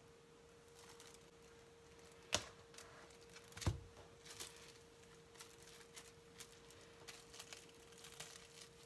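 Faint crinkling and rustling of plastic cling film as it is handled and folded over raw chicken breasts on a plastic cutting board. There is a sharp tap about two and a half seconds in and a dull thump just before four seconds, then many small crackles of the film. A faint steady hum runs underneath.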